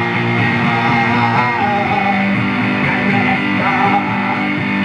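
Rock music: an electric guitar strummed through an amplifier, with a voice singing one word about a second in.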